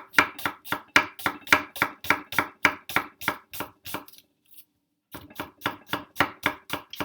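Kitchen knife chopping onion on a cutting board: quick, even knocks at about three to four strokes a second, pausing for about a second a little past halfway, then resuming.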